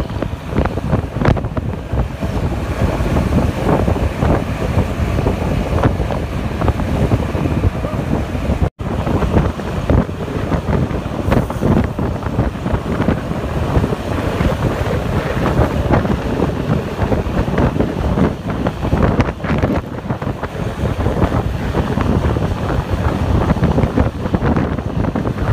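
Heavy wind buffeting the microphone over the low rumble of a passing or moving vehicle, with no horn sounding. The sound cuts out briefly about nine seconds in.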